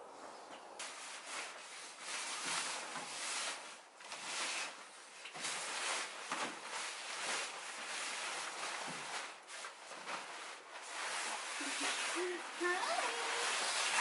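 Fabric treadmill cover rustling and swishing as it is tugged and pulled off the treadmill, in uneven, on-and-off bursts of noise.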